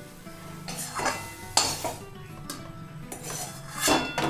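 Metal spatula scraping and knocking against an aluminium kadai as boiled taro leaves are scooped out of it, in about five separate strokes with the loudest near the end.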